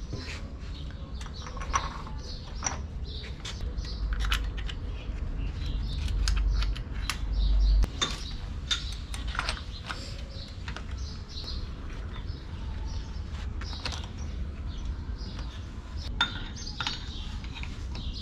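Scattered metal clinks and taps of hand tools and fittings against a diesel engine's cylinder head, with a low rumble from about four to eight seconds in.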